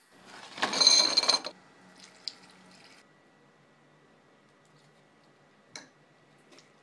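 A brief splash of liquid in a bowl of milk, lasting about a second near the start, followed by a few faint clicks.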